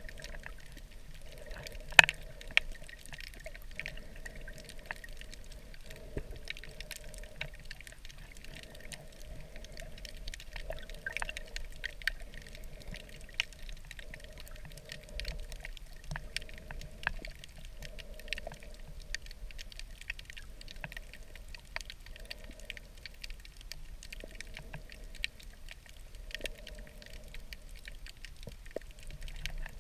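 Underwater sound over a shallow coral reef: a continual crackle of sharp little clicks over a faint muffled wash of water, with one louder click about two seconds in.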